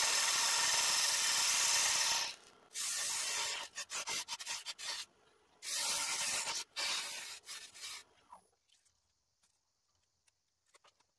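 Parting tool cutting into spinning sycamore on a wood lathe, defining the cutoff point at the vase's base: a steady scraping hiss for about two seconds, then a run of short cuts that stop and start, fading out about eight seconds in.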